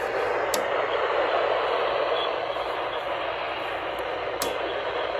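Steady radio static hiss from a weather radio receiver on a weak or between-station signal, with two faint clicks.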